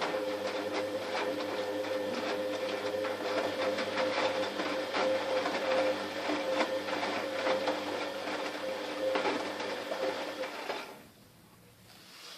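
Fagor washing machine's motor turning the drum during a wash, a steady whine with a rapid clatter of clicks, stopping about 11 seconds in as the drum pauses.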